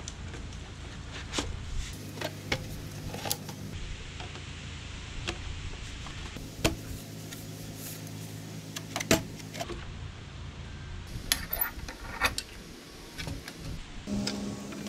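Hard plastic tubes of a Troy-Bilt 27cc gas leaf blower clicking and knocking as they are handled and fitted onto the blower housing. The clicks are scattered and irregular, over a steady low hum.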